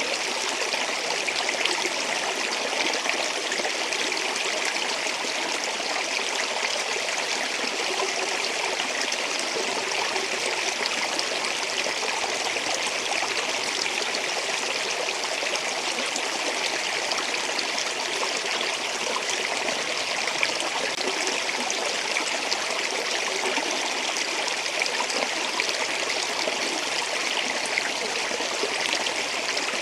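Flowing water of a stream or small falls, a steady, even rush that never lets up.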